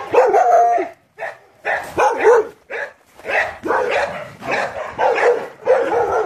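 Dogs in a kennel pack barking repeatedly, about ten short barks one after another, some bending up and down in pitch.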